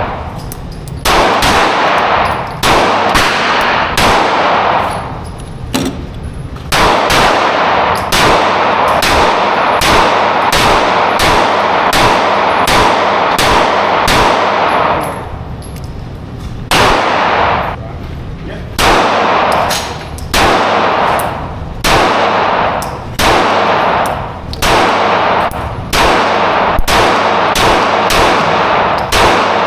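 Strings of rapid gunfire with steel targets ringing from the hits, several fast strings broken by short pauses.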